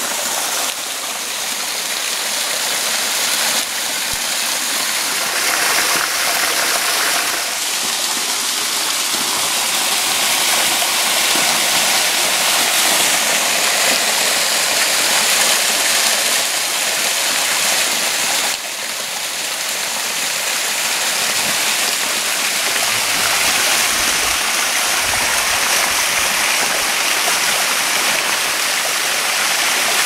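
Small waterfall pouring down a rock face: a steady rush of falling, splashing water, with a few brief dips in level.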